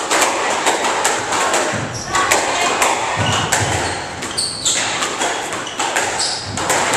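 Squash rally: the ball being struck by the racquets and smacking off the court walls and floor, a quick, irregular series of sharp knocks.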